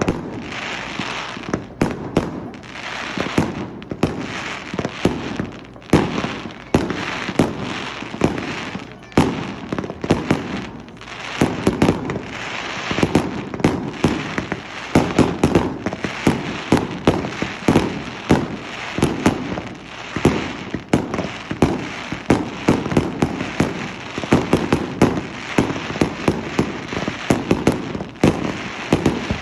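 Fireworks display: a dense barrage of firework bursts, several bangs a second, without a break.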